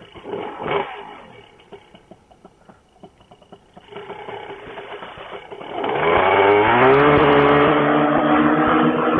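A few light knocks and clicks, then about six seconds in a paramotor engine starts, its pitch rising for about a second as it spins up before it settles into running steadily.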